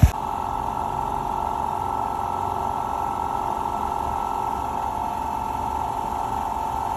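A sharp click, then a steady, even machine hum.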